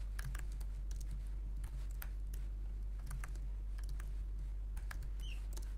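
Typing on a computer keyboard: irregular runs of keystroke clicks over a steady low hum.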